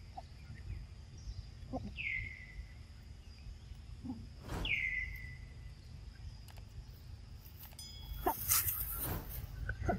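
Two high whistle-like animal calls, each sliding down in pitch and then holding briefly, a couple of seconds apart, over a steady low outdoor rumble. Short rustling and clicking noises, loudest near the end.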